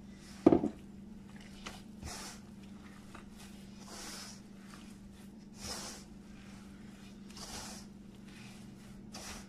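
Hand mixing a soft, wet whole-wheat flour dough in a metal bowl: soft squelching swishes, about one every two seconds. One loud knock comes about half a second in. A steady low hum runs underneath.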